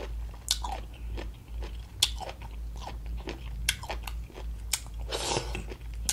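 Close-up biting and chewing of crunchy pickled radish, with sharp crunches about every second or so. A brief hiss-like noise comes a little past five seconds in.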